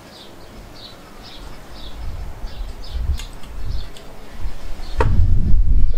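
A small bird chirping over and over in short high notes. A low rumble builds up and is loudest near the end, with a sharp click about five seconds in.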